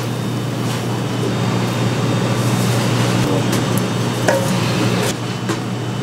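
Steady low hum of kitchen machinery, with a few light clinks and taps as bowls and a spatula touch the wok while seasonings are tipped in.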